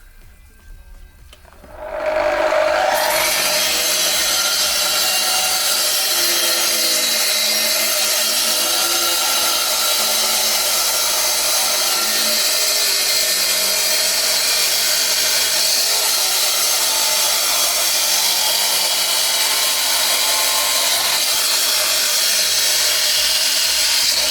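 Electric wet block cutter, with water spray suppression, starting up about two seconds in and cutting steadily through a concrete block.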